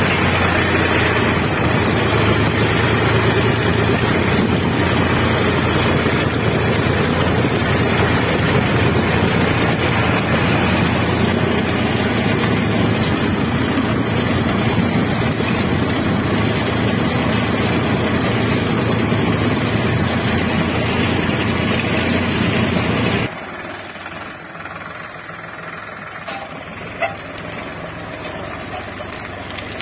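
Solis Yanmar 4WD tractor's diesel engine running steadily under load while pulling a three-bottom reversible plough, heard close from the driver's seat. About 23 seconds in the sound drops suddenly to a quieter, more distant engine sound, with a brief knock a few seconds later.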